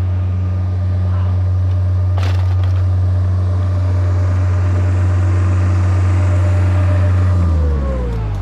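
An engine runs steadily at high revs, with a sharp knock about two seconds in; near the end the revs drop away.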